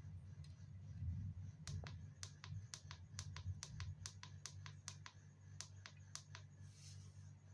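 Faint, quick series of small sharp clicks, about four a second for around four and a half seconds, over a steady low hum, with a brief soft hiss near the end.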